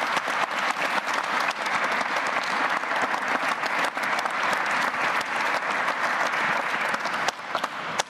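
Audience applauding: dense, steady clapping from a large crowd that thins out near the end.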